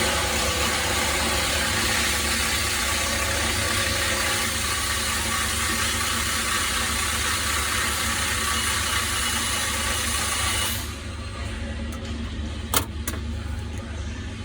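Loud shop background noise: a steady hiss over a low mechanical hum, the hiss cutting off suddenly about eleven seconds in and leaving the hum. Two small sharp clicks follow near the end.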